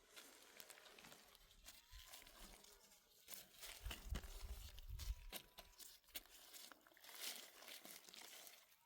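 Faint crackling and scattered clicks, like handling or steps on dry ground, with a few faint distant livestock bleats.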